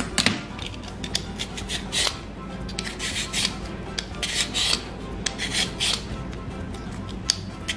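Vegetable peeler scraping the skin off a raw potato in short, repeated strokes, about one or two a second.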